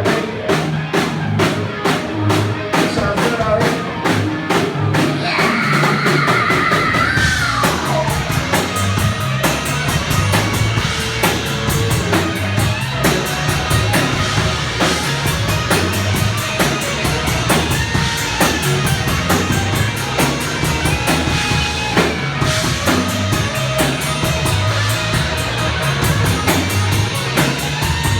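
Rock band playing live, loud and steady: fast drumming with distorted guitar and bass. About five seconds in, a high sliding tone falls in pitch over roughly two seconds.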